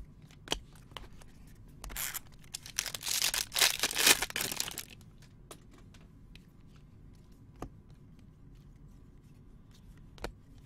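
Foil trading-card pack wrapper being torn open and crinkled for about three seconds, with a few light clicks of cards being handled before and after.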